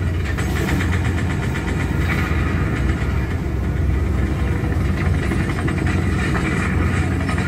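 Engine and tyre noise of a moving bus, heard from inside the cabin: a steady low drone with road hiss from the wet road.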